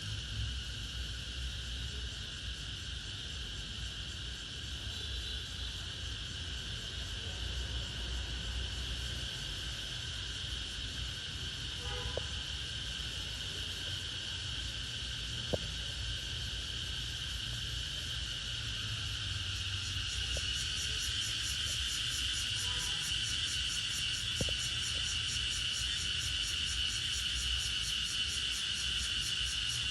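Cicadas singing in a steady, high-pitched buzzing chorus that grows louder and takes on a pulsing edge about two-thirds of the way through.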